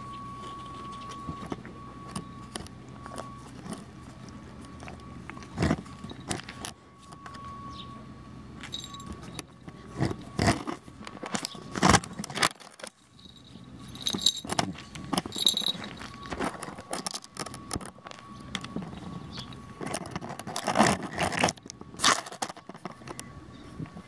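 A kitten's collar bell jingling in irregular bursts as the kitten paws and bats at the camera, with knocks and scrapes of paws and fur against the microphone.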